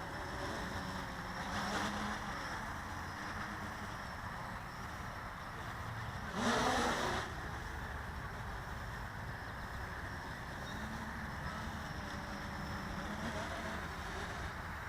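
Blade 350 QX quadcopter's motors and propellers running in flight, their hum drifting up and down in pitch, with a louder, rising surge about six and a half seconds in.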